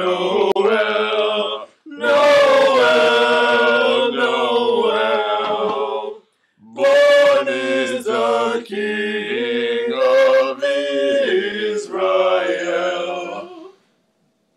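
A small group of voices singing a song together a cappella, in phrases with two short breaks, ending about a second before the end.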